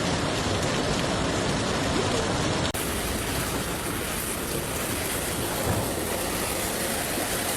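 Steady rushing of floodwater, an even noise throughout, with a cut about three seconds in to another recording of the same kind of noise.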